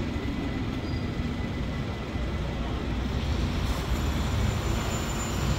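A large vehicle rumbling steadily, with a faint high whine coming in about four seconds in.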